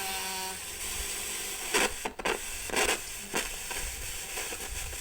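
A repaired Sony WM-FX310 Walkman radio playing a station through its small speaker over steady hiss, with a few held tones early on and several short, louder crackling bursts in the middle.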